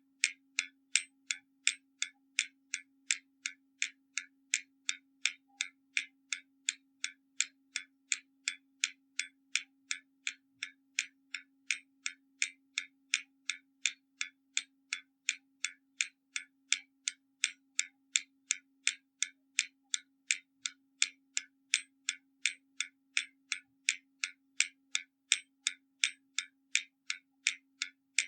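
Hermle mechanical skeleton clock ticking steadily from its escapement, about two ticks a second, the beats alternating louder and softer in a tick-tock pattern.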